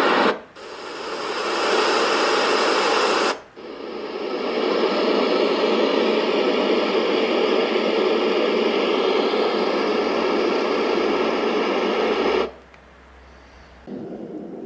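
Baby white-noise machine playing steady hissing noise sounds, switching to a different noise sound twice: a short break about half a second in and again about three and a half seconds in, each new sound fading up. It stops abruptly about twelve and a half seconds in, and a quieter sound starts near the end.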